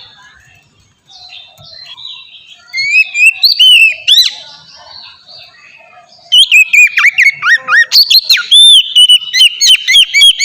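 Oriental magpie-robin (kacer) singing in the open, free-flowing 'ngeplong' style: whistled phrases of quick rising and falling notes. The song is sparse and softer at first, then breaks into a loud, rapid run of notes about six seconds in.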